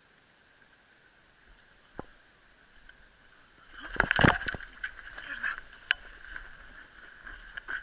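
Knocks and scrapes on large rock blocks at the water's edge, loudest in a burst about halfway through, followed by scattered knocks and water sloshing against the rocks.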